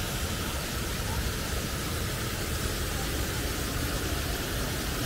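Steady rushing noise of the Bükkös-patak stream's cascade, with a fluctuating low rumble beneath it.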